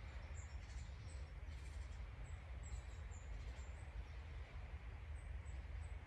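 Forest ambience: small birds giving short, high chirps here and there over a steady low rumble.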